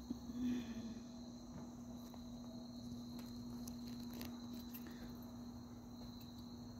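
Crickets trilling steadily in a faint evening insect chorus, over a low steady hum, with a few faint clicks midway.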